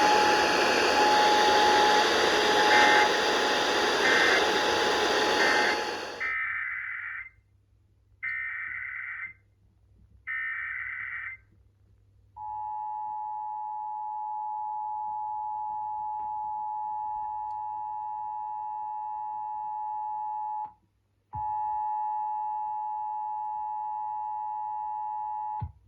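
Emergency Alert System broadcast tones. Loud static with a steady tone carries three short data chirps, the end-of-message code. The signal then cuts off and three one-second screeching SAME data bursts follow, then the two-tone EAS attention signal held for about thirteen seconds, dropping out briefly near the end.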